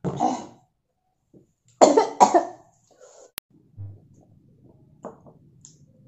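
A woman coughing: one cough at the start, then a quick double cough about two seconds in. A single sharp click follows a little over a second later.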